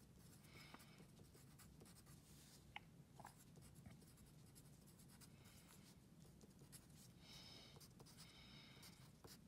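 Faint scratching of a wooden pencil writing on paper, in short strokes.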